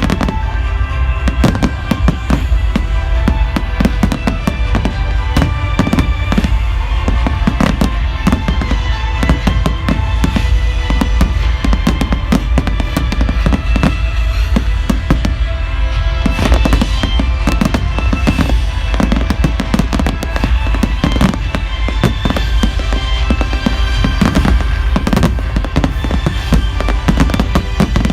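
Fireworks display: a dense, continuous barrage of bangs and crackles with a deep rumble, and music playing alongside.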